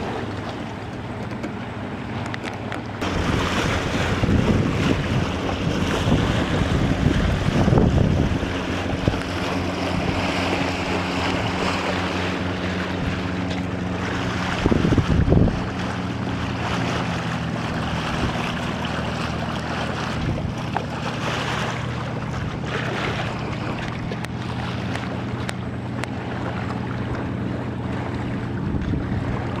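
Wind buffeting the microphone and water rushing past the hull of an Albin Accent sailboat under sail. A steady low hum runs through much of it, and there is one heavier buffet about halfway through.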